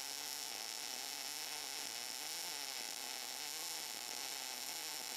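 Arc of a Cebora Pocket Pulse MIG (wire-feed) welder burning steadily while a bead is laid at raised current, a continuous even hiss.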